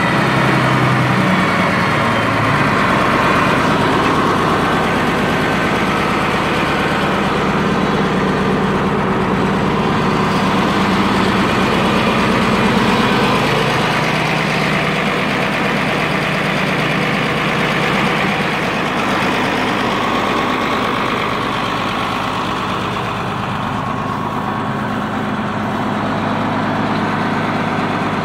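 International Harvester 1456 tractor's turbocharged six-cylinder diesel engine running steadily.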